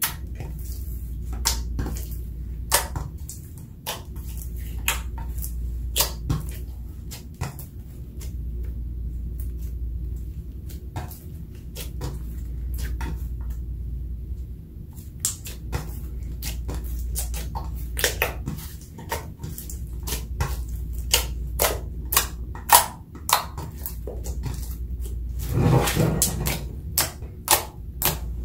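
Clear glitter slime being kneaded and squished by hand in a glass dish: irregular sharp clicks and pops as it is pressed and pulled, with a longer squelch near the end. A steady low hum runs underneath.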